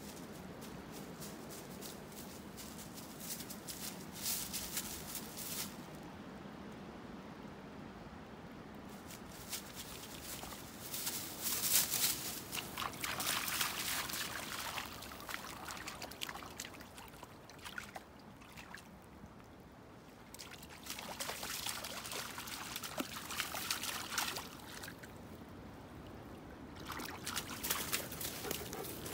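A giant Alaskan malamute wading and stepping through a shallow creek: bursts of splashing and sloshing water over the faint trickle of the stream, loudest about halfway through.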